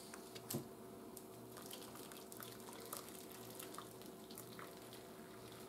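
Thick homemade Alfredo sauce being poured from a saucepan into a crock pot, with faint clicks and scrapes of a spoon against the pan.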